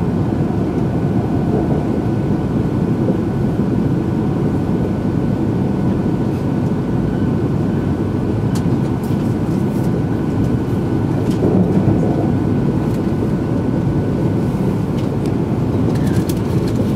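Steady running noise heard inside the cabin of an E2 series Shinkansen train cruising on elevated track, a dense low rumble with a faint steady high whine and a few light clicks in the second half.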